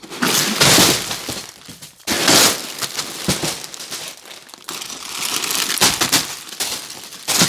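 Sealed plastic bags of LEGO pieces being shaken out of a large upturned cardboard set box and tumbling onto a table, crinkling. The sound comes in loud rushes, the biggest in the first second and another about two seconds in.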